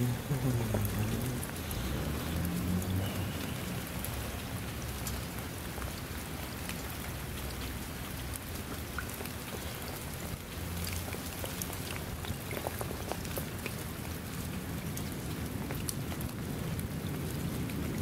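Steady rain falling on a shallow puddle and wet ground, with many individual drops ticking on the water. A low rumble sounds under it for the first few seconds.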